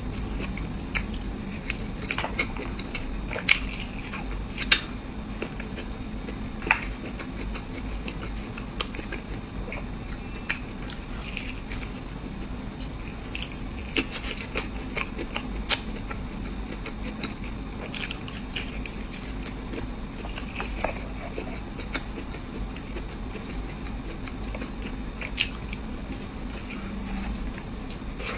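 Close-miked eating: a person chewing and biting, with sharp crisp crunches and wet mouth clicks at irregular intervals over a steady low hum.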